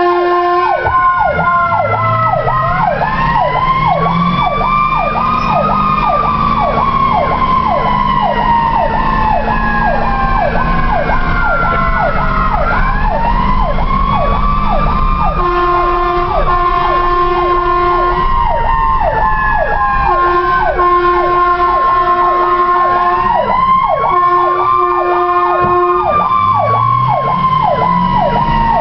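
Ambulance warning sirens heard from inside the cab. A Federal PowerCall electronic siren runs a fast yelp throughout, while a Federal e-Q2B mechanical siren winds up and coasts down in a long slow wail three times. An air horn blasts several times in the second half.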